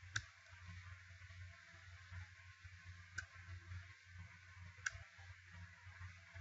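Three short, sharp computer clicks advancing the presentation slides: one right at the start, one about three seconds in, one a second and a half later. Under them is a faint, steady low hum.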